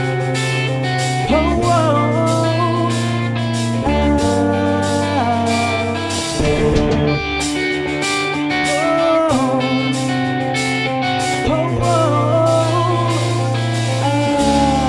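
Blues-rock band playing: electric guitar with gliding, wavering notes over held bass notes that change every couple of seconds, and a steady drum beat.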